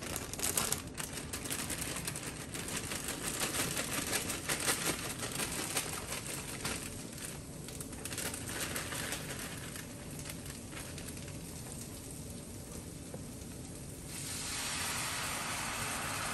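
Food sizzling and crackling in hot skillets on a stovetop, with a plastic bag crinkling as broccoli florets are tipped into a pan. Near the end the sound turns into a louder, steady hiss.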